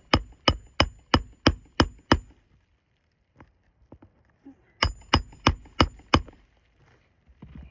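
Hammer striking on a shingle roof during a shingle repair, about three blows a second, each with a short metallic ring: seven blows, a pause of a couple of seconds, then five more.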